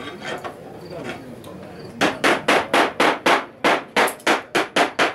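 Slate hammer striking slate on a mitered hip in a fast run of over a dozen sharp taps, about four a second, starting about two seconds in.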